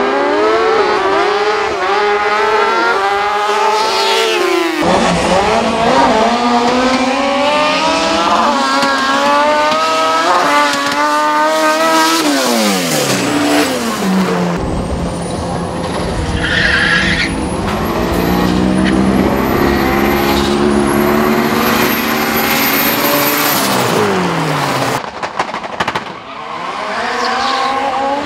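Sport motorcycles revving and launching down a drag strip, their engine notes climbing in pitch through the gear changes and then falling away. After that a car engine runs while its tyres squeal and skid as it slides, and near the end two Mitsubishi Lancer Evolutions rev at the start line.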